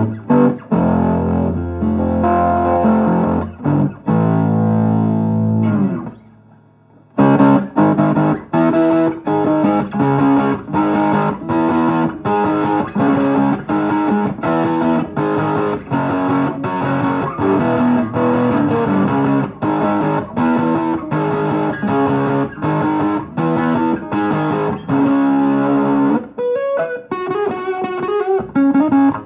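Vermona Regent 300 K being played: held chords over low bass notes, a pause of about a second, then quick short chords at about two a second, changing pitch, with a higher-pitched passage near the end.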